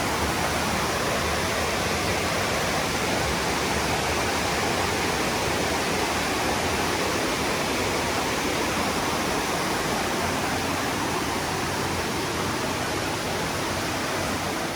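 Steady rush of fast-flowing water, like a stream running high and fast.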